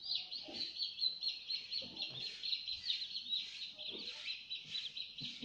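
A brood of week-old Brahma chicks peeping non-stop, many short high chirps overlapping.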